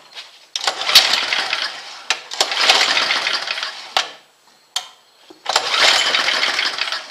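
John Deere snowblower's small engine cranked over three times in quick attempts, each spell lasting about a second and a half, without settling into a run: the carburettor's fuel-air mixture screw has just been adjusted and is not yet set right.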